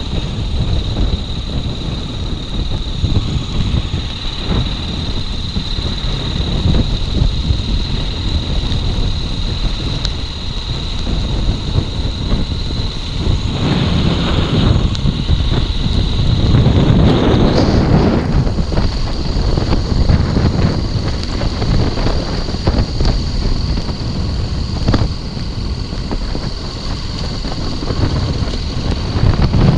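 Motorcycle riding on a dirt road, with the engine running under heavy wind buffeting on the microphone that swells louder about halfway through. A steady high-pitched tone sits above it.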